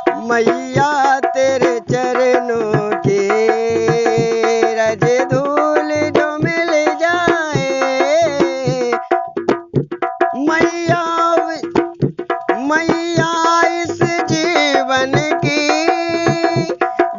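Dholak drumming in a quick, steady rhythm under a sustained melody from a devotional song. The melody drops out briefly about halfway through while the drum keeps playing.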